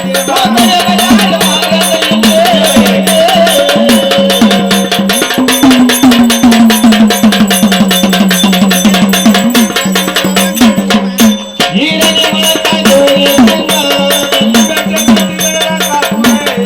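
Traditional Indian folk music: drums and fast, even percussion strokes over a steady held note, with a brief drop about eleven and a half seconds in.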